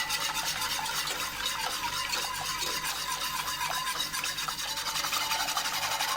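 A utensil stirring and scraping around the bottom of a pan of white sauce (flour, ghee and milk) as it thickens over low heat, a steady run of rasping scrapes several times a second.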